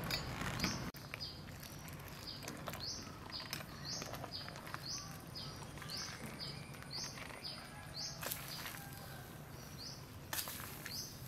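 A small bird repeating a short, high, rising chirp over and over, about twice a second. Under it are a few soft clinks and splashes of a metal ladle serving soup into a glass bowl.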